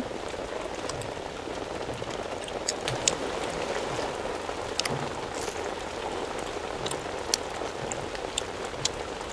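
Steady rain: an even hiss with scattered sharp ticks of single drops.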